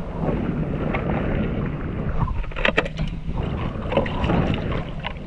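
Wind and water noise with a steady low hum underneath, and a few short knocks around the middle and near the end.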